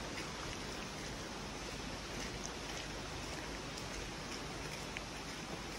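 Steady rushing of a nearby stream or waterfall, an even hiss with a few faint scattered ticks.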